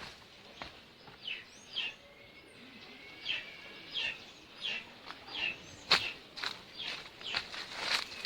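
A bird calls over and over, short falling chirps coming about every half second. Footsteps crunch on dry ground now and then.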